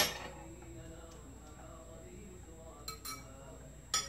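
Metal rod and fittings of a tiered glass serving stand clinking against its glass plates during assembly: one sharp, loud clink with a short ring at the start, two lighter clinks near three seconds and another near the end.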